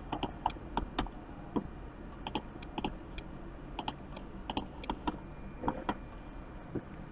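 Scattered sharp clicks of a computer mouse and keyboard being worked, a few each second and often in quick pairs, over a faint low hum.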